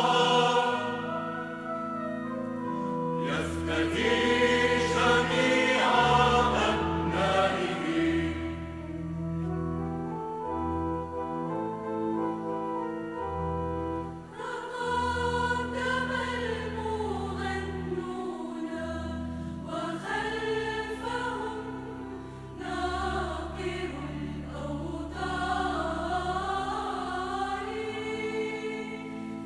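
Mixed choir of women's and men's voices singing a hymn in parts, with long held low notes underneath.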